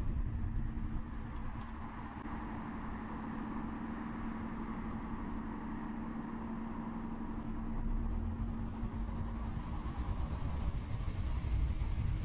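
Car engine idling at a standstill with a steady low hum. The low rumble grows louder over the last few seconds as the car begins to pull away.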